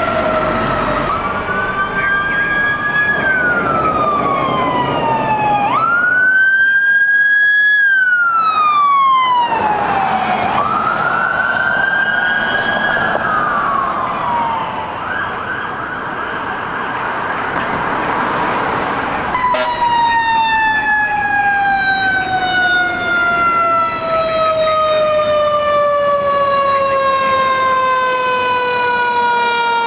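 Fire engine sirens on an emergency response: a wail rising and falling in repeated sweeps for the first half, a brief steady tone, then from about two-thirds of the way in one long siren tone falling slowly in pitch, over road and engine noise.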